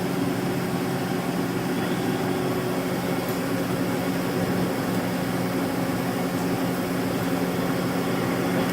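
1995 Mazak Slant Turn 60 CNC lathe running its spindle for a spindle test: a steady mechanical hum with a low tone.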